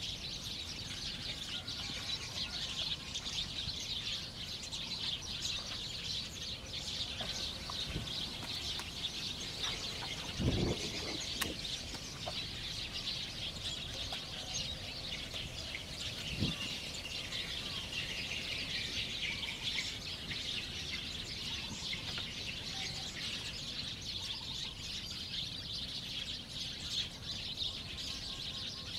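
Dense, continuous chorus of birds chirping, with two dull knocks about ten and sixteen seconds in.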